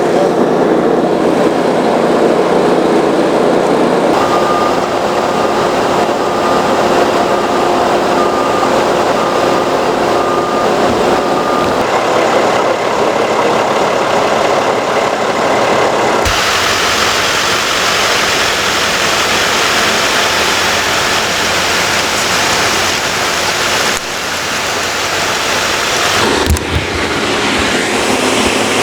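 Fire engine running with a steady, loud drone. A few seconds in, a short electronic beep repeats about once a second for about seven seconds, and about two-thirds of the way through the noise turns brighter and hissier.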